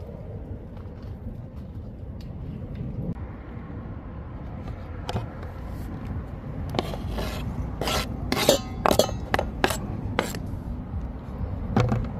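Kitchen knife knocking and scraping on a plastic cutting board: scattered clicks, then a quick run of sharp knocks in the second half, over a steady low rumble.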